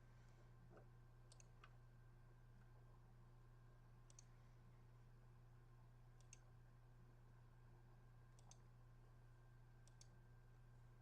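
Near silence over a steady low hum, broken by five faint, sharp computer-mouse clicks, a couple of seconds apart, some of them in quick pairs.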